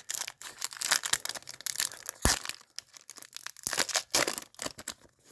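Crinkling and rustling as hockey cards and their plastic packaging are handled, with one dull thump a little over two seconds in.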